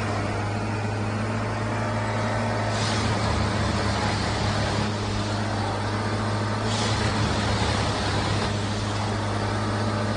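Heavy machinery's diesel engine running steadily, a low even hum with a hiss above it that changes abruptly about 3 and 7 seconds in.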